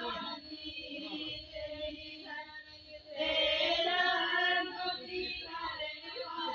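Women singing a Karam festival song together, growing louder about three seconds in.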